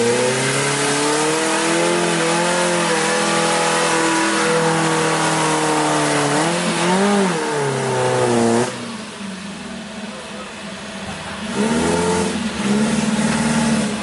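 Off-road jeep engine revving hard under load, its pitch rising and falling. It drops back to a lower, quieter note about nine seconds in, then revs up again near the end.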